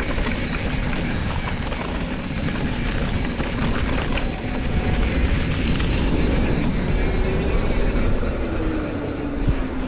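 Mountain bike rolling fast down a dirt trail: wind rushing over the camera microphone, with tyre rumble and rattles from the bike. A faint whirring tone slides up and down in pitch in the second half.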